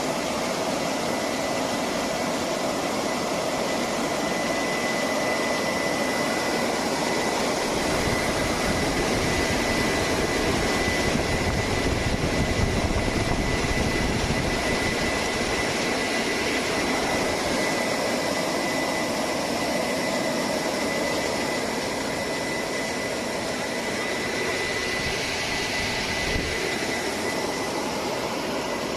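Fruit and vegetable washing line running: a steady mix of machine and water noise with a thin, high, steady whine. It grows a little louder and deeper for several seconds in the middle.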